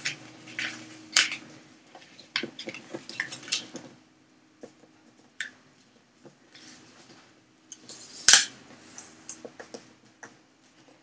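A sheet of 80 g printer paper being folded and creased by hand: scattered crinkles and rustles of the paper, with a sharper crackle about eight seconds in.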